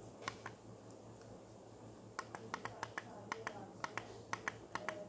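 Faint clicks from the small push buttons on a W3230 digital temperature controller as they are pressed to step through its setting parameters. There are two clicks near the start, then a quick run of clicks, several a second, from about two seconds in.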